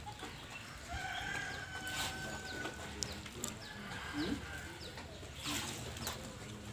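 A rooster crowing: two long, drawn-out held calls, with faint short chirps of small birds and a few brief knocks.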